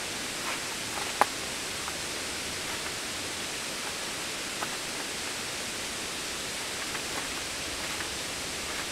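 Steady outdoor hiss with a few faint clicks scattered through it and one sharp click a little over a second in.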